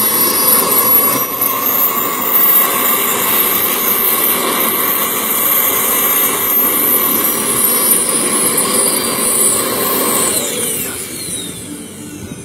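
Miniature jet turbine of a radio-controlled scale F-16 running with a loud steady rush and high whine. Near the end it winds down after shutdown, its whine falling in pitch as it spools down.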